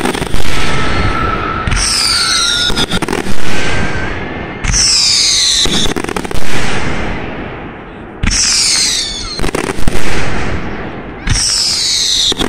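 Aerial fireworks shells bursting overhead: loud sharp bangs about every three seconds, each run filled with crackling and sizzling.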